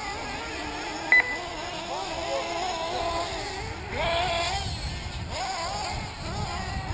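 Several 1/8-scale nitro RC buggy engines buzzing, their pitch rising and falling as the cars accelerate and brake around the track, with a sharp rise in pitch about four seconds in. A short, loud high beep about a second in.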